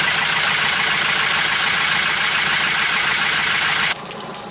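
A sailboat's inboard engine running steadily at idle in the close confines of its engine room, with fresh water from a hose being flushed through its cooling system. The noise cuts off abruptly near the end.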